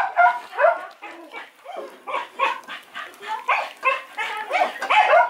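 A puppy eating canned dog food from a metal bowl, making quick short whines and squeaky grunts, several a second.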